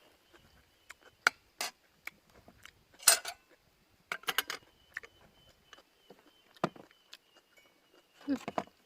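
Cutlery clinking and scraping against a plate while eating: scattered sharp clinks, the loudest about three seconds in and a quick cluster a second later.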